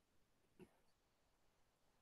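Near silence: faint room tone, with one brief faint click or knock a little over half a second in.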